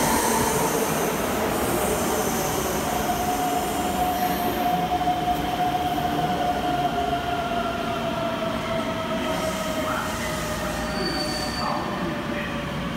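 Keikyu electric train braking along an underground station platform and drawing to a stop: a steady running rumble with a long high squeal that drifts slowly lower in pitch as the train slows.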